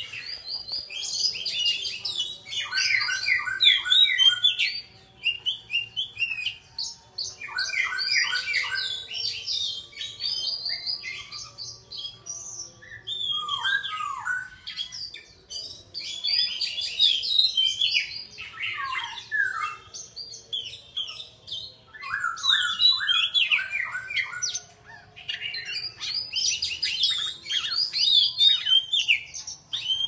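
Caged songbird singing a varied song of whistled and chattering phrases, in bursts broken by short pauses.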